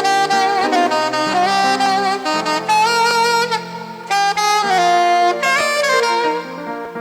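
Saxophone playing a melody with pitch bends over sustained keyboard-like chords and a bass line, with a short lull about four seconds in.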